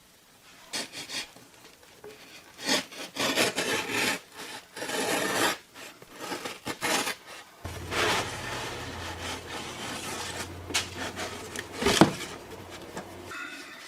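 A cardboard shipping package being opened and handled: irregular rubbing and scraping of cardboard and packing. A sharp knock comes about twelve seconds in, and a low hum runs through the second half.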